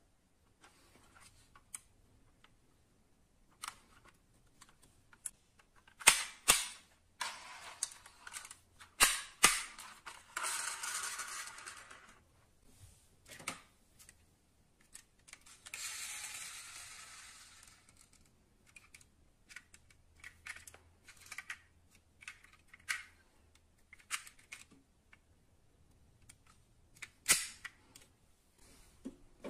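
Die-cast metal model cars being handled: sharp clicks and clacks, with the loudest knocks coming in pairs about a third of a second apart, and one more loud click near the end. There are also two rushing noises of about two seconds each.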